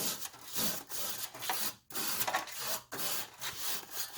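Coil brush scrubbing the evaporator coil fins of a window air conditioner in repeated brushing strokes, about two a second.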